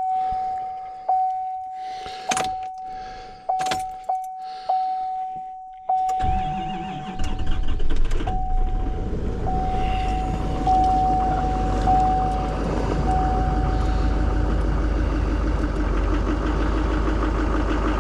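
Truck's dashboard warning chime dinging repeatedly, with keys jangling. About six seconds in, the engine cranks and catches on a cold start in sub-zero air, then settles into a steady idle as the chime dies away.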